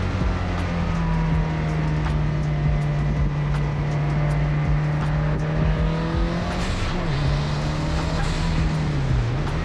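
A 500-horsepower track wagon's engine running hard at high, fairly steady revs on a race track. Its pitch briefly drops and climbs back twice in the last few seconds.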